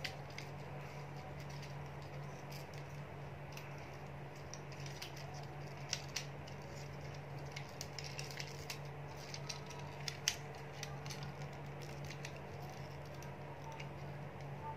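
Plastic parts of a Weijiang Devastator transforming-robot figure clicking and snapping as its joints are turned and folded into dump-truck mode, scattered clicks with the sharpest about six and ten seconds in. A steady low hum runs underneath.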